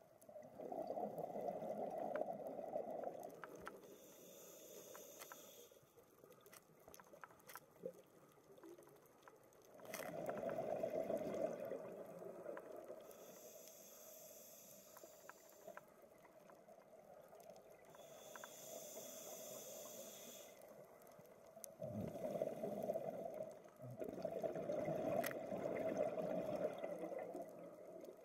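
Scuba diver breathing through a regulator, heard underwater: three rumbling bursts of exhaled bubbles lasting a few seconds each, alternating with a fainter high hiss of inhaling.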